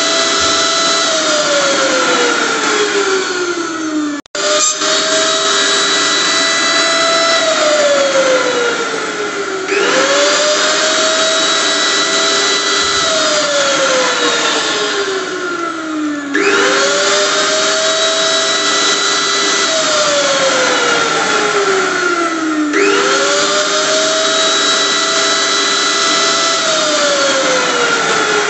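Electric blender motor running, its pitch repeatedly gliding down as it slows, then climbing back up and holding, about every six seconds. The sound cuts out for an instant about four seconds in.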